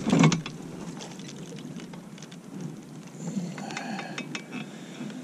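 A thump at the start, then light clicks and rattles of fishing rods and gear being handled in a small boat, with a short faint whine about three to four seconds in.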